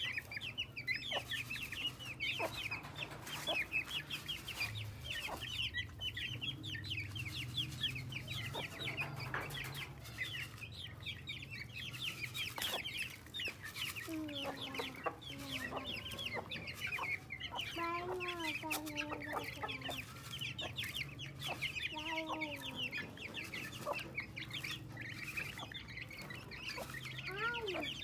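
A flock of young chicks peeping rapidly and continuously while feeding on grain. A few lower, falling calls from a hen come in about halfway through.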